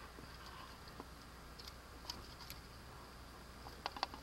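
Canoe paddling: faint scattered clicks and light drips of a wooden paddle working the water beside the hull, a small cluster of clicks near the end, over a faint steady high-pitched hum.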